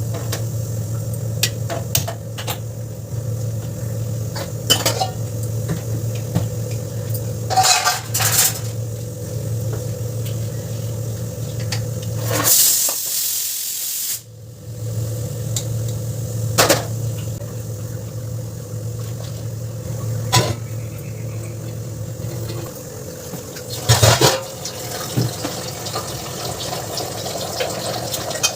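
Kitchen utensils and dishes clinking and clattering now and then, over a steady low hum. A short burst of rushing noise comes a little under halfway through.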